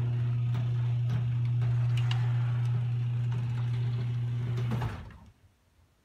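Craftsman 1/2-horsepower chain-drive garage door opener running as it raises the door: a loud, steady motor hum with irregular clicks from the chain and trolley. It stops abruptly a little under five seconds in, as the door reaches its fully open position.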